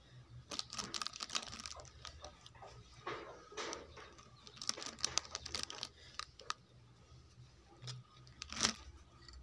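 Plastic wrap crinkling and rustling in clusters of crackles as pieces of soft green sponge cake are pulled off by hand, with the loudest crackle near the end.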